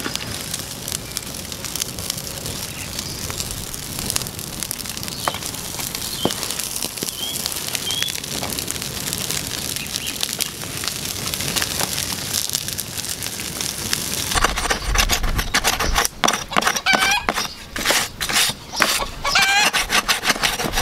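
Open wood fire crackling as an animal hide singes over it, with scattered pops and a few faint high chirps. About two-thirds through, a louder stretch of rapid clicks and knocks begins, with short repeated calls over it.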